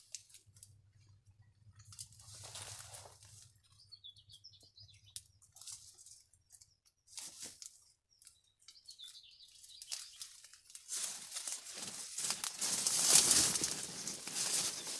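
Dry reed stalks and grass rustling and crackling as someone pushes through a dense reed bed. Short scattered rustles come first, then from about two-thirds of the way in a continuous crackling, loudest near the end.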